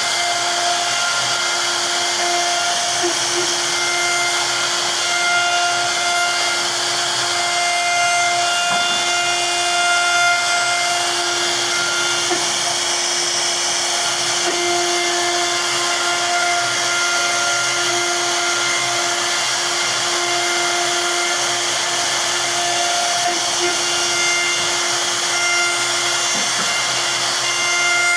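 CNC router spindle running with a steady high whine while its bit carves a relief pattern into a wooden panel, over a continuous hiss of cutting.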